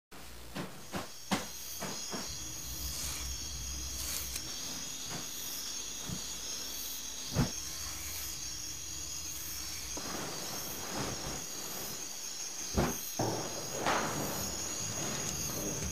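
Steady hiss with a thin high whine, broken by a few sharp knocks: three in the first second and a half, one in the middle, and two more near the end, with soft rushes of noise in the last few seconds.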